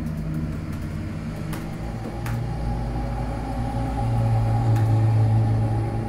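A London bus's engine running close by, a low steady hum that grows louder about four seconds in, over the wash of street traffic.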